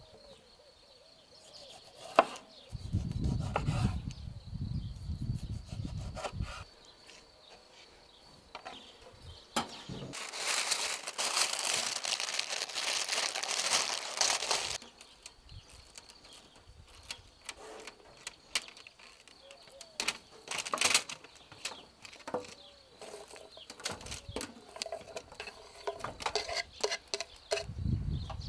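Baking parchment pulled off its roll with a long papery rustle lasting about four seconds, then scattered light knocks and crinkles as the paper is pressed into a steel tray and onion rings are dropped in. A low rumble comes a few seconds in.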